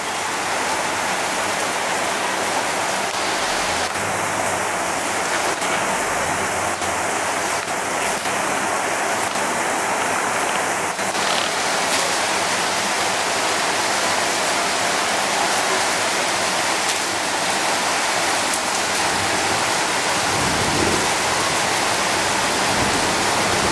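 Steady rain falling on tiled rooftops, an even hiss with no breaks.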